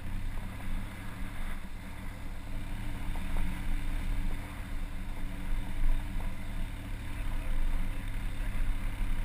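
Off-road vehicle engine running steadily on a rocky climb, a constant low hum, with wind buffeting the microphone.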